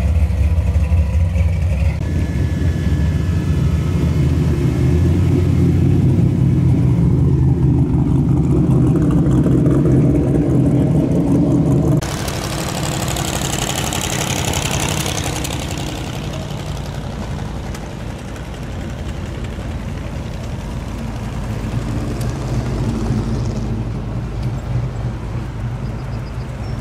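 Classic cars driving past slowly. First a blue Chevy II Nova with a cowl hood runs by with a loud, deep engine rumble. About twelve seconds in it cuts off suddenly to quieter passing cars, with a few seconds of hiss and then a steady, softer engine sound.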